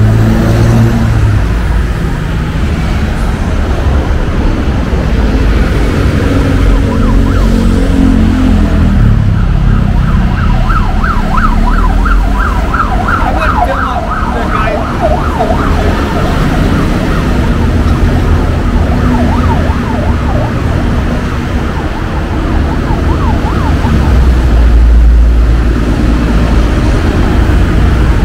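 Heavy road traffic rumbling, with an emergency-vehicle siren in fast, repeated rise-and-fall yelps, strongest in the middle and briefly again near the end.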